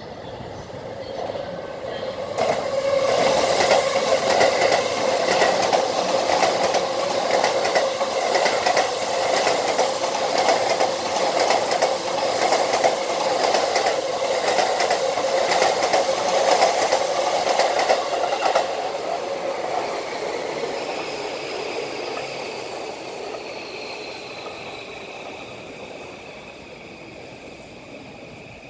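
Orange-and-green JR Tokaido Line commuter electric train running through the station at speed without stopping. The rumble and rapid wheel clatter swell about two seconds in and stay loud for some fifteen seconds. The sound then fades as the train runs off, with a thin falling whine near the end.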